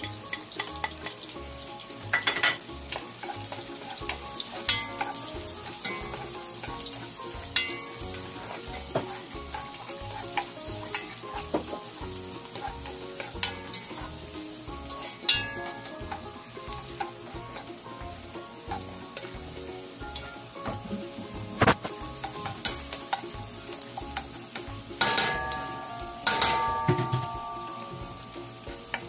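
Sliced onion and chopped garlic sizzling as they fry in a large pot, stirred with a spatula. Now and then the spatula knocks against the pot with a short ringing clank, several times close together near the end.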